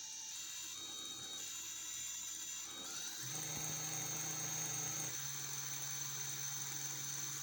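Multistar Elite 2306-2150Kv brushless motor spinning at a steady speed, a high whine with a rattling, mechanical edge. About three seconds in, a lower hum sets in and the sound grows a little louder.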